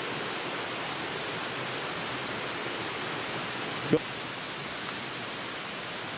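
Steady rushing of a flowing creek, with one short sharp knock about four seconds in.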